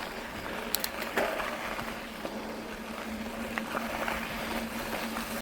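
Mountain bike riding over rough rocky ground: steady rolling and rattling noise, with a couple of sharp clicks about a second in and a faint steady hum.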